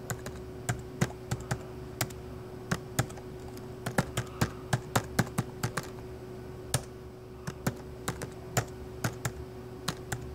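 Typing on a MacBook keyboard: irregular key clicks with a short pause about six seconds in, as a username and password are entered for the installer's sign-in. A faint steady hum runs underneath.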